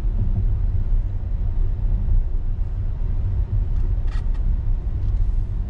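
Steady low rumble of an Audi Q7 on the move, with road and engine noise heard from inside the cabin.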